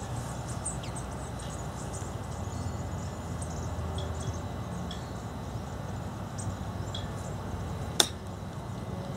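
A golf club strikes a ball on a short chip shot, one sharp click about eight seconds in. It sits over steady outdoor background noise with faint, scattered high chirping.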